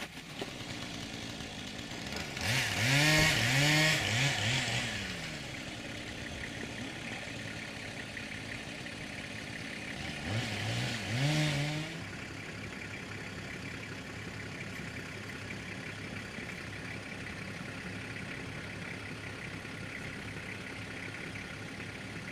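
An engine revving up and back down twice, each time for about two seconds, over a steady running engine.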